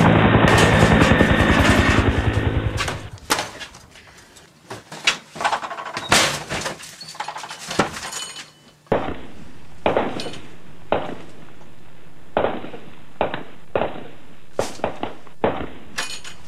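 A string of action sound effects: a loud, low rumble that dies away about three seconds in, then scattered crashes and breaking impacts, then a run of sharp bangs over a steady background.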